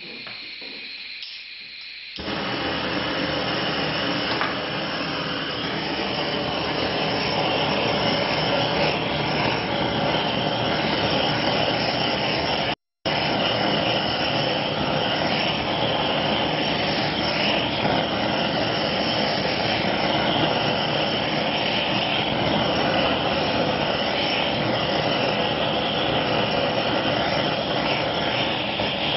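Butane kitchen blowtorch flame hissing steadily as it caramelizes the sugar topping of a crème brûlée; it gets louder about two seconds in, with a brief cut to silence about halfway through.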